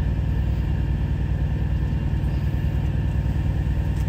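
Semi truck's diesel engine idling, a steady low rumble heard inside the sleeper cab.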